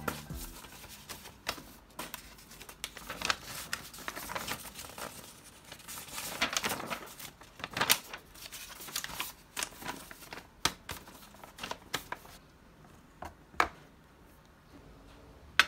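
Sheets of notebook paper rustling and crinkling as they are handled and shuffled on a desk, in many short strokes. Near the end it goes quieter, with a few light clicks and knocks.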